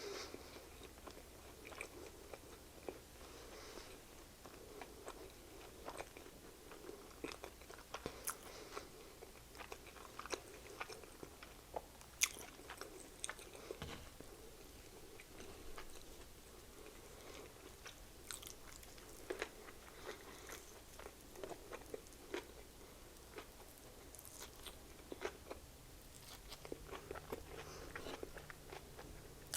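Close-miked chewing and biting of a chicken sandwich: a string of small, irregular mouth clicks and smacks.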